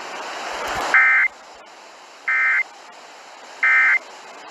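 Emergency Alert System end-of-message data bursts: three short, harsh two-tone digital squawks about a second and a third apart, over a steady radio hiss. They signal the end of the alert.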